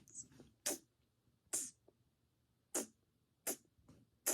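Repeated kissing sounds made with the lips: five short smacking kisses, about one a second.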